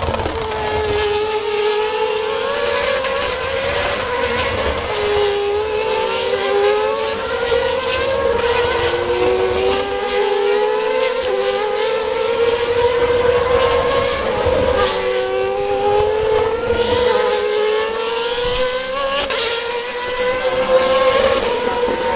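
Engines of several single-seater formula racing cars running hard, their notes repeatedly climbing through upshifts and dropping again as the cars pass and move away around the circuit, several engines overlapping.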